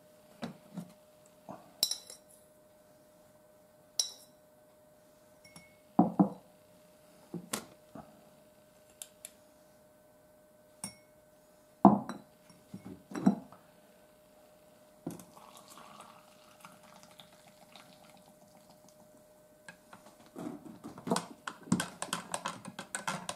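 A metal spoon knocking and clinking against glass jars and a ceramic cup as something is scooped out and stirred in. There are single sharp clinks a second or two apart, then quicker repeated clinks of stirring near the end.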